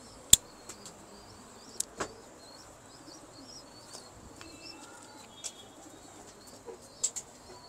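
Faint, high bird chirping repeating in the background, with a few sharp clicks or taps. The loudest comes about a third of a second in, and smaller ones follow near two seconds, the middle and the end.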